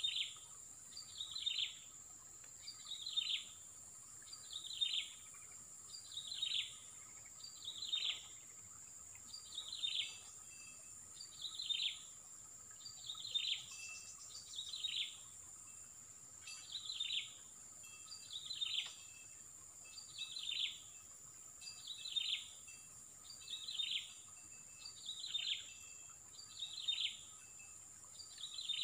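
A bird calling over and over, each call a short note falling in pitch and repeated about every second and a half to two seconds, over a steady high-pitched whine.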